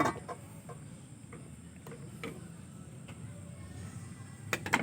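Light clicks and knocks of an air rifle being handled. A few clicks are spread out, then a quick run of sharper, louder clicks comes near the end.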